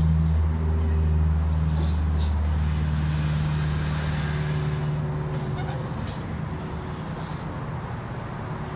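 A steady low motor hum that eases off in the second half, with two stretches of hissing air, each about two seconds long, as a balloon is blown up by mouth.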